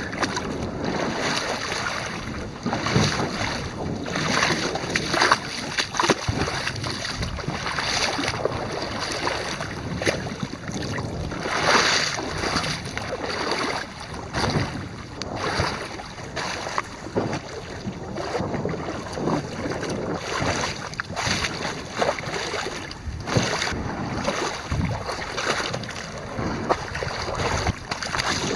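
A loaded canoe being hauled by hand through a rocky river shoal: steady rushing water, with frequent irregular splashes, knocks and scrapes of the hull and of wading among the boulders, and some wind on the microphone.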